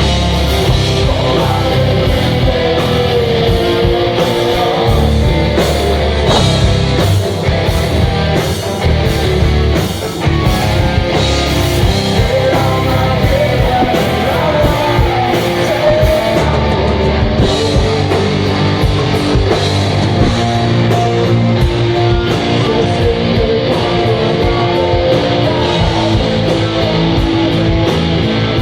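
Rock band playing live: electric guitar, bass and drums. The cymbal and drum strokes thin out about halfway through while the guitars carry on.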